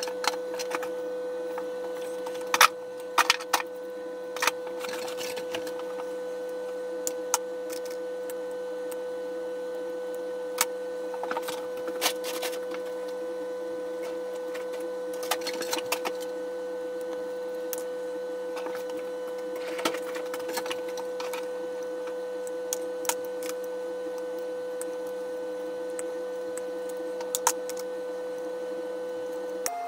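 A steady machine hum holding one tone, with scattered sharp clicks and knocks, a cluster of the loudest about three seconds in.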